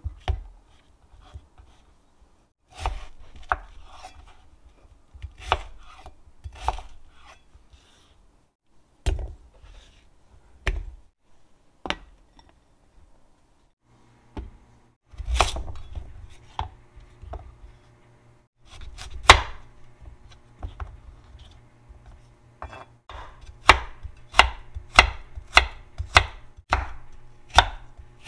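Kitchen knife chopping vegetables on an end-grain wooden cutting board, first potato and then carrot. Single knocks come a second or two apart at first. Near the end they become a quicker, even run of about two strokes a second as the carrot is cut into sticks.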